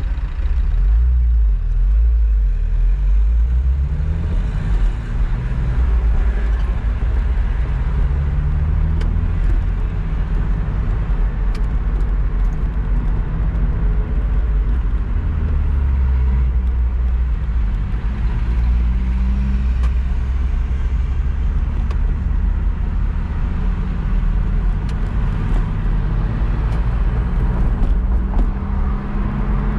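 Car engine heard from inside the cabin, pulling away from a standstill and accelerating. Its note rises and drops back several times as it goes up through the gears, over low rumble and road noise.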